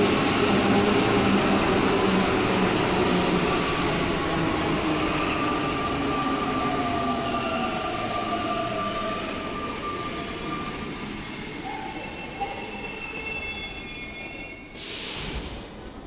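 Santiago Metro NS-93 rubber-tyred train moving through the station, its running noise carrying several high squealing tones and gradually fading. A short hiss comes near the end.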